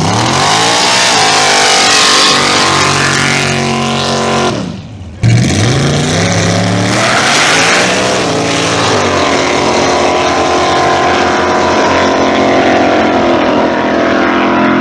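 Hard-revving drag-race engines of a Pontiac GTO and a GMC pickup. The revs climb, drop away for a moment about four and a half seconds in, then climb again and hold high as the cars launch and run down the road, spinning their tires.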